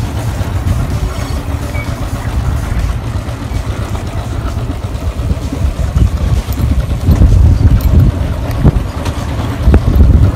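Motorcycle running along a rough dirt track, a loud, uneven low rumble that grows louder in the second half.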